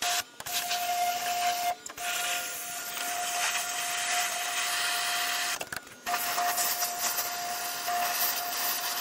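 Pressure washer spraying water into the base of a car's front fender to blast out mud and leaves, a loud steady hiss with a thin steady whine through it. The spray cuts off briefly about two seconds in and again near six seconds as the trigger is let go.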